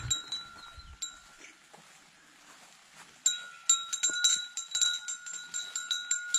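A small bell on a cow's collar clinking as the cow moves. It is faint at first, then from about three seconds in it rings out with quick, irregular strikes.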